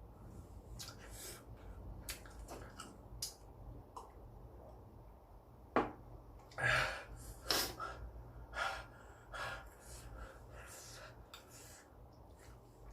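Mouth and breath sounds of someone eating very spicy noodles: short noisy slurps, sniffs and sharp breaths with small clicks. A sharp click comes just before six seconds in, and the loudest slurps and breaths follow over the next three seconds or so.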